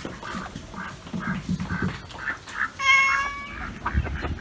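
A single high, steady animal call lasting about half a second near the middle, over a run of short, soft calls about three a second.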